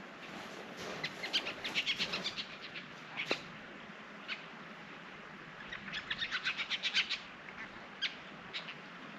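Two quick runs of short, high-pitched chirps, about nine a second, one about a second in and one past the middle, with a few single chirps between and after.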